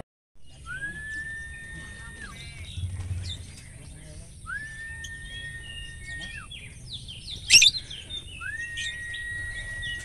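Caged songbirds chirping. Three long, level whistled notes come about four seconds apart, and one loud, sharp chirp stands out near the three-quarter mark.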